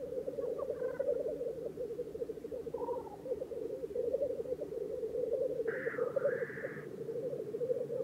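Black grouse cocks lekking: a continuous chorus of their low, fast-pulsing bubbling song, with a higher, harsher call about six seconds in.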